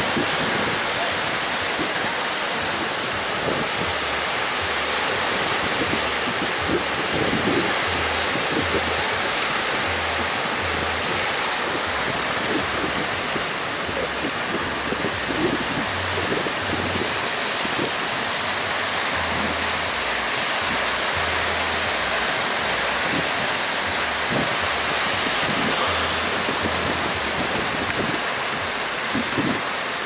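Rough sea surf breaking and churning in a steady, unbroken rush of water, with wind buffeting the microphone.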